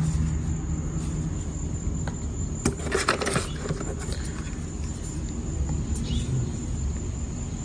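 Plastic packaging and cardboard rustling in a short crackly burst about three seconds in, as a hand reaches into the shipping box for the charger. A steady high insect trill, like crickets, runs underneath.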